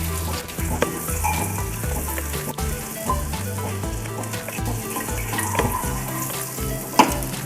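Butter melting and sizzling in a frying pan over the heat, with scattered small crackles.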